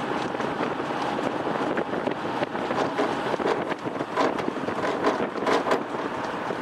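Wind buffeting the microphone over the running noise of a moving vehicle, with a few sharp knocks in the second half.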